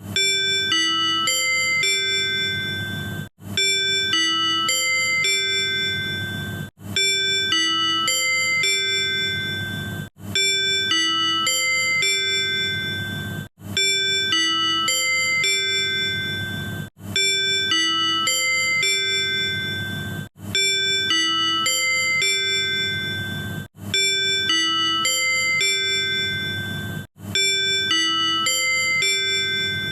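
Tobu 100 series Spacia's manual on-board chime: a short few-note electronic chime, the signal that comes before the conductor's announcements and the on-board sales announcement. It plays over and over, about every three and a half seconds, with a short gap between repeats and a low steady rumble underneath.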